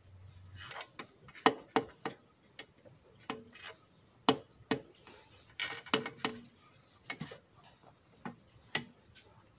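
Irregular sharp clicks and knocks as the top-mount intercooler of a Nissan Frontier D22 and its rubber intake hose are worked by hand, the metal housing and hose fitting knocking against the intake and engine parts.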